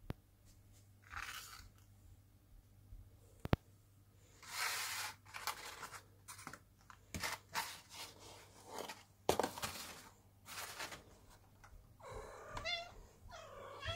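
Foil cat-food pouches being torn open and squeezed out onto paper plates, with crinkling, rustling and a couple of sharp clicks. Near the end a cat meows a few times, wanting its food.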